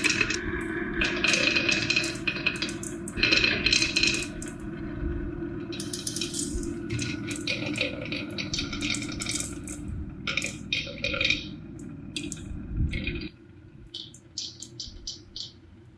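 Marbles rolling and clicking along a plastic marble-run track, with many irregular clacks over a steady low hum that stops about 13 seconds in.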